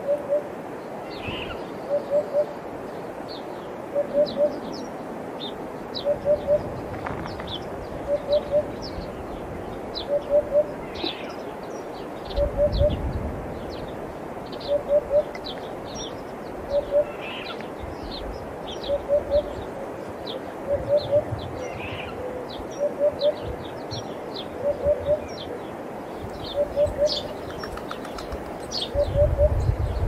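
Eurasian hoopoe calling its low three-note hoot, repeated about every two seconds, while sparrows chirp rapidly and high in the background.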